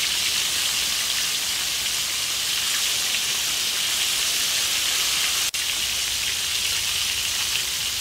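Flour-coated chicken pieces deep-frying in hot oil in a wok: a steady, dense crackling sizzle, with a momentary break about five and a half seconds in.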